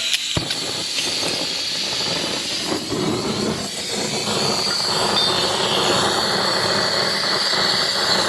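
Gas torch flame hissing steadily as it heats the rear hub around a seized wheel bearing to free it.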